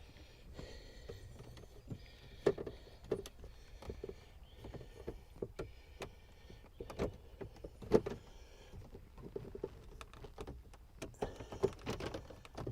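Car center console and interior trim parts being handled and fitted by hand: irregular light knocks, clicks and rustling, with a few louder knocks about two and a half and eight seconds in.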